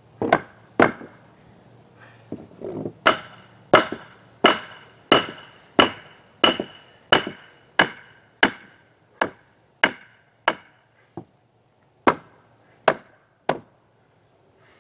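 Hammer nailing an oak pallet-wood trim board onto a cabin wall: about eighteen sharp, ringing blows, most in a steady rhythm of roughly three blows every two seconds. There is a short pause near the end, then three last strikes.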